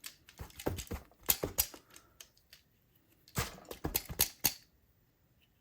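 Quick irregular clicks and taps of small tools and plastic parts as an HO scale model steam locomotive is handled and pried apart, in two clusters: one at the start and a second about three seconds in.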